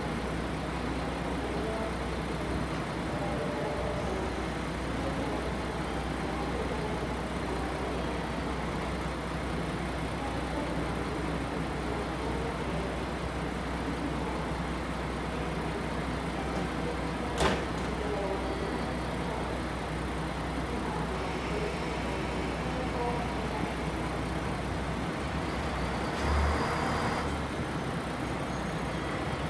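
Diesel engine of a KiHa 147 railcar idling steadily while the train stands at the platform. A single sharp knock comes about seventeen seconds in, and a brief low thud near the end.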